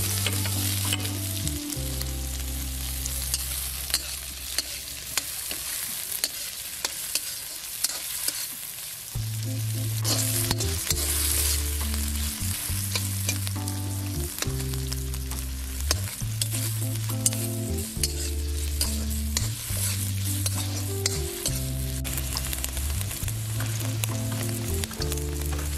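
Paneer cubes sizzling in hot oil in an iron wok, stirred with a steel ladle that clicks and scrapes against the pan. A low background melody plays underneath.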